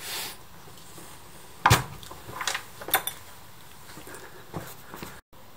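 Handling noises on a workbench: a brief rustle, then one sharp knock about two seconds in and a few lighter clicks of small objects being picked up and set down.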